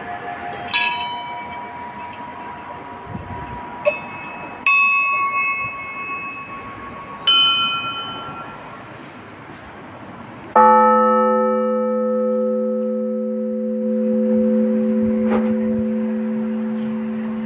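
Orthodox church bells ringing for Easter: smaller, higher bells struck singly every few seconds, then about ten seconds in a large low bell is struck loudly and its tone rings on.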